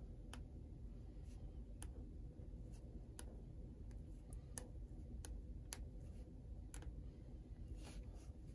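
Faint light ticks and taps at uneven intervals, with a short soft scratch near the end: a Paper Mate Flare felt-tip pen on paper, writing a label. A low steady hum lies under it.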